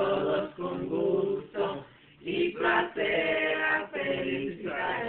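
A group of people singing a birthday song together, men's and women's voices at once, unaccompanied.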